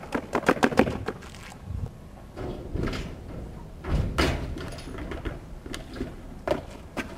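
Clatter and knocks on a metal dumpster as a person climbs onto it, with a heavy bang about four seconds in.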